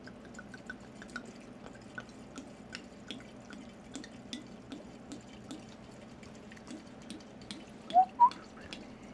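Dark rum poured in a thin stream from a bottle into a large glass jar of dried mamajuana bark and roots: a steady trickle with many small ticking drips. Two brief, louder rising notes come about eight seconds in.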